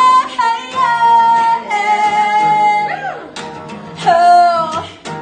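A woman singing live over an acoustic guitar, holding long sustained notes.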